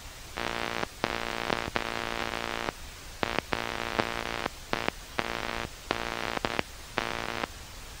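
Portable AM radio picking up buzzing interference from the computer keyboard it sits on as keys are pressed: a harsh buzz that switches on and off in irregular bursts, a fraction of a second to about a second long, with sharp clicks at their edges and hiss between them. Near the end the buzzing stops, leaving only static.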